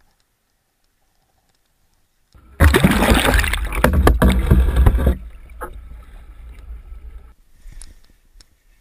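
Near silence, then about two seconds in a loud burst of splashing and muffled rushing water on a camera's microphone as it goes underwater, with a deep rumble. About five seconds in it drops to a quieter underwater rumble that fades.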